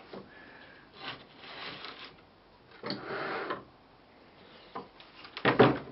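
A spatula scraping and working linocut printing ink on the inking slab in two strokes. Near the end come a few sharp knocks of tools against the table, the loudest sounds.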